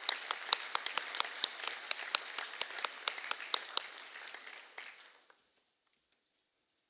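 Audience applause, with single sharp claps standing out above the crowd at about four a second; it dies away about five seconds in.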